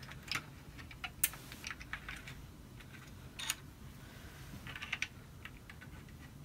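Light clicks and taps of small plastic and metal parts being handled and fitted into a foam-dart blaster's plastic shell: the magazine release catch and its spring. The clicks are scattered and irregular, with two sharper ones about a second in and halfway through.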